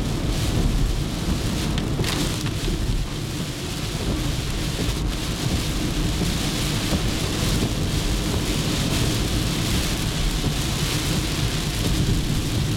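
Heavy rain beating on a moving car's windshield and roof, heard inside the cabin over a steady low rumble of tyres on the wet road, with a few sharp ticks.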